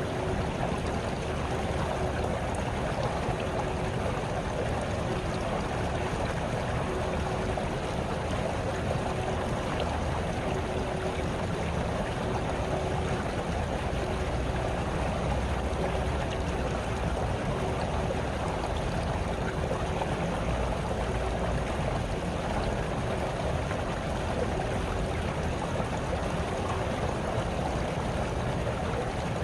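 A small brook babbling steadily, an even rush of running water.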